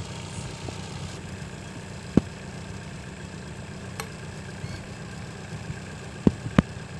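An engine idling steadily, with three sharp knocks: one about two seconds in and two close together near the end.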